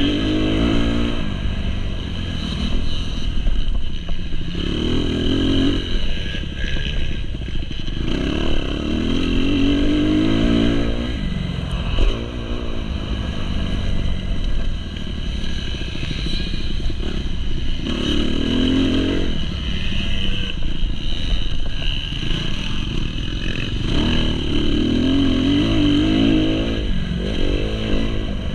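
2019 Kawasaki KX250's four-stroke single-cylinder engine, heard from on board, revving up hard and backing off again and again as it is ridden around a motocross track, its pitch climbing with each throttle opening. About twelve seconds in there is a single sharp knock.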